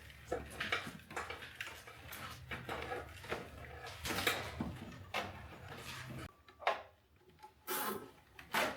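Hands working a wiring harness and its plastic wire loom: irregular clicks, rustles and small rattles of wire and plastic being pulled and rearranged, over a faint low hum that stops about six seconds in.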